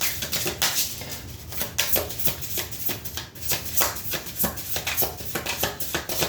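A tarot deck being shuffled by hand: a quick, irregular run of card flicks, slaps and rustles.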